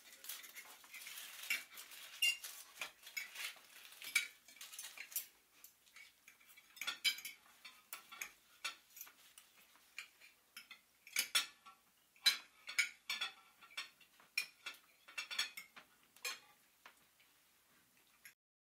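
Cutlery and dishes clinking and clattering in irregular light clinks, busier in clusters, stopping shortly before the end.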